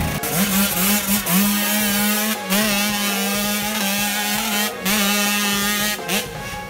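Off-road motorcycle engine revving: a few quick rising blips of the throttle, then held steady at high revs, dropping off briefly a few times.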